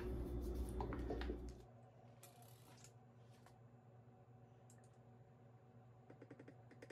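Faint clicks and light taps from kitchen utensils and containers being handled, with a quick run of rapid clicks near the end. A low hum at the start cuts off suddenly after about a second and a half.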